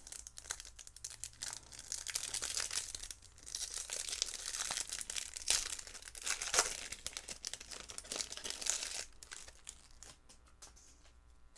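A foil trading-card pack being torn open and crinkled by hand, a dry crackling rustle that thins out to a few light clicks near the end as the cards come out.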